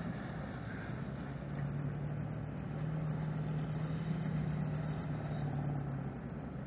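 Pickup truck engine running as the truck drives through wet mud, a steady drone that grows a little louder about two seconds in and eases off near the end.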